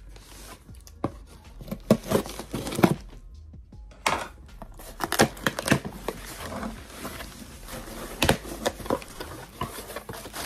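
A large knife slitting the packing tape on a cardboard shipping box, then the flaps being torn open and the plastic wrap inside crinkling: irregular scrapes, rips and crackles, with a short lull about three seconds in.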